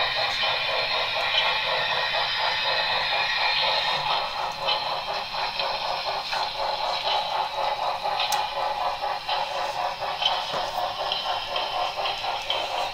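HO scale model steam locomotive running along the track with its train: a steady, fast rhythmic running sound with a few sharp clicks scattered through it.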